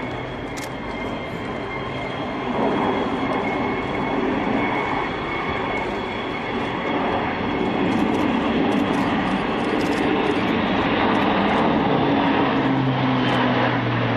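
Airbus A400M four-engined turboprop flying past: a broad engine rumble with a steady high propeller whine over it, growing louder as the aircraft comes overhead in the second half.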